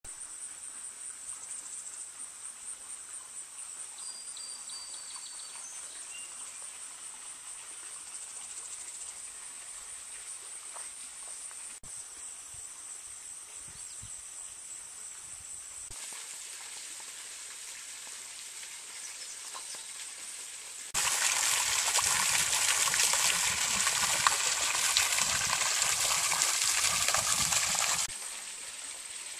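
Outdoor rural ambience with a steady high-pitched drone. A much louder, even rushing noise runs for about seven seconds near the end.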